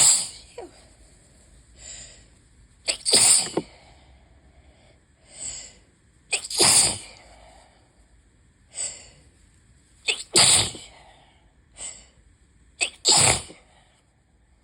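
A person sneezing over and over from a pollen allergy: five loud sneezes about three seconds apart, each with a quieter sound about a second before it.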